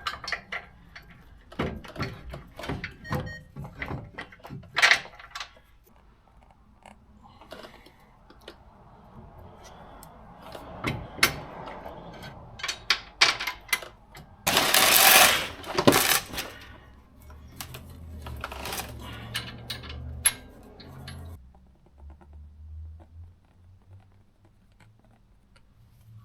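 Steel bolts, washers and nuts clinking and clicking against each other as they are handled. A little past the middle there is one loud rushing burst lasting about two seconds.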